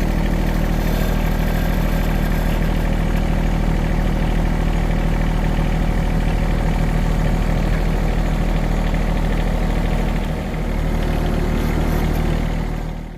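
Vehicle engine idling steadily, with a brief dip in level about ten and a half seconds in; it cuts off abruptly at the end.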